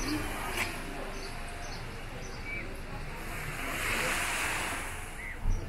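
Sea waves washing onto the shore, with one wash swelling up and fading away about halfway through.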